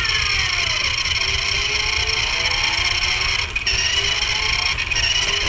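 Small electric drive motor and plastic gearbox of a Roary the Racing Car infrared remote-control toy whining steadily as it drives, heard from a mini camera strapped to the car. The whine briefly dips about three and a half seconds in.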